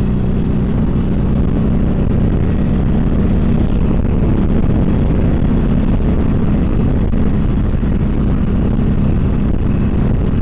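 Harley-Davidson Sportster 1200 Seventy-Two's air-cooled V-twin running steadily at highway speed with two riders aboard.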